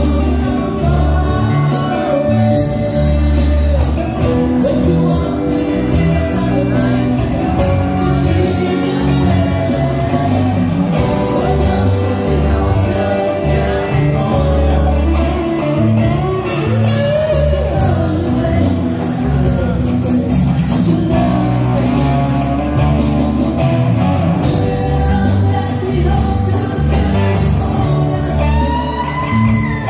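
A live rock band is playing electric guitars, bass guitar, keyboards and drums, with a man singing lead into a microphone through the PA.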